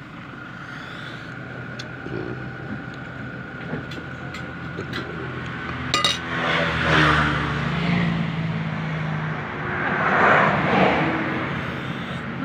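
Motor vehicle traffic passing on the road, the engine noise swelling past twice, loudest about 7 and 10 seconds in. A few light clinks come before it.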